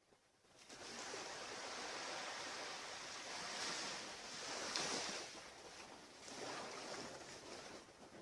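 Ocean surf washing on a beach, swelling and fading, loudest about five seconds in.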